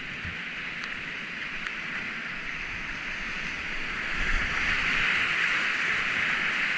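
Whitewater rapids rushing steadily around a kayak, growing louder about four seconds in.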